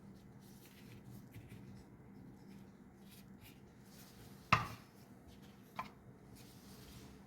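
Faint scraping and rubbing of kitchen handling, with one sharp knock about four and a half seconds in and a smaller one a little over a second later, like a utensil striking a plate or board.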